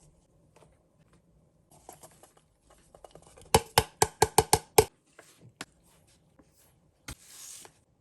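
Kitchen utensils being handled: a quick run of about seven sharp taps a little past halfway, then a few single clicks and a short rustle near the end.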